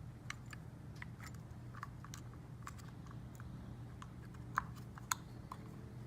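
Faint scattered clicks and taps of small plastic turn-signal parts being handled and fitted together, with two sharper clicks about four and a half and five seconds in, over a steady low hum.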